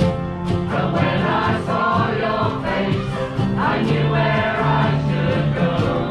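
A folk band playing live, several voices singing together over acoustic guitars strumming a steady beat.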